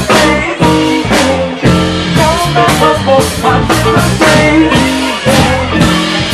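Live band playing an upbeat song with electric guitar over a steady drum beat of about two hits a second.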